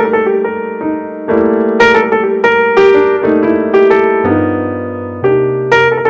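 Background music: a piano playing a light melody of struck notes that each fade, over lower chords, with the bass moving lower about four seconds in.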